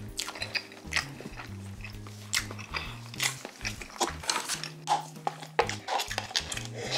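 Close-miked eating sounds, wet chewing and lip smacks in quick short clicks, over background music with a low stepping bass line. Toward the end comes sipping from a spicy cup noodle.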